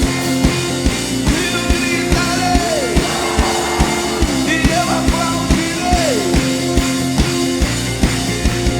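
Live worship band playing an upbeat song: a steady drum beat of about two hits a second under sustained chords, with sliding melodic lines over them.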